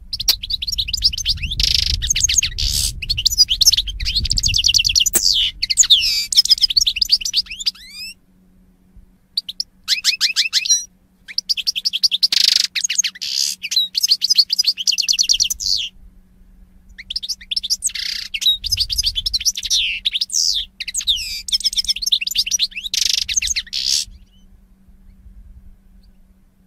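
European goldfinch singing: three long bouts of rapid, high twittering and trills, each several seconds long, with short pauses between them.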